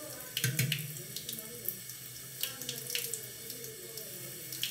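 Water running steadily from a tap into a sink, with several short, scratchy scrapes of a cartridge razor drawn over a lathered scalp.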